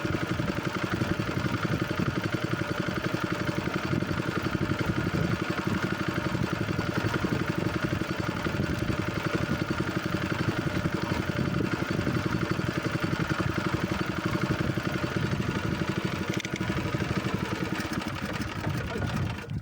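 A small boat's engine running steadily with a fast, even beat, easing off slightly near the end.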